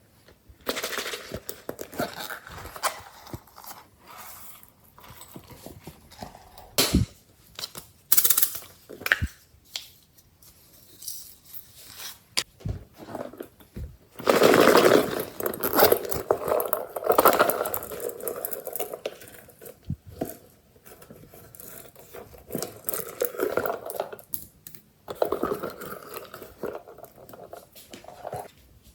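Glossy slime being squished, stretched and mixed by hand, giving irregular sticky crackles and pops with a few sharp clicks. The densest, loudest squishing comes about halfway through.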